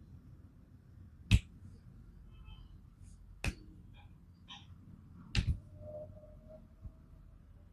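Joints being cracked during a massage: three sharp pops about two seconds apart, the first the loudest and the third a quick double, with a faint fourth near the end.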